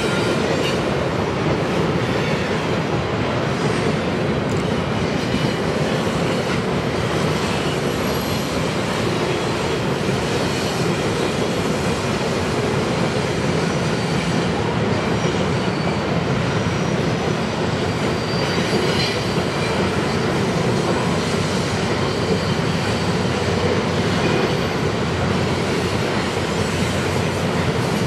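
Loaded coal hopper cars of a long freight train rolling steadily across a steel arch bridge. The wheels and cars make a continuous, even rumble with clatter, unchanging throughout.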